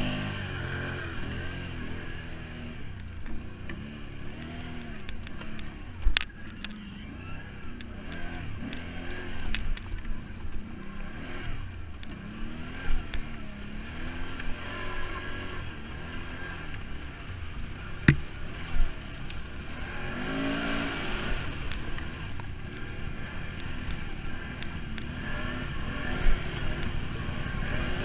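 Off-road vehicle engine running and revving up and down over and over, with a few sharp knocks along the way.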